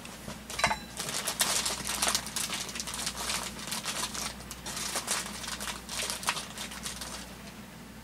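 Packing material crinkling and rustling as it is handled, in a dense run of quick crackles. It starts about half a second in and dies away near the end.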